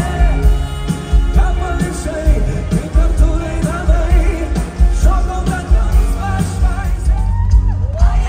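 Live pop-rock song performed with a symphony orchestra: a male singer over a heavy, steady drum beat.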